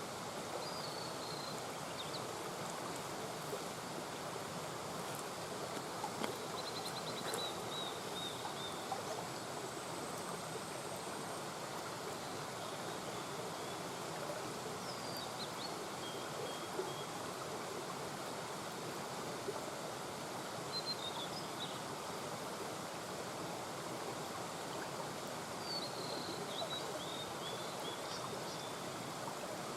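Small mountain brook murmuring steadily, with a few short, high chirps now and then.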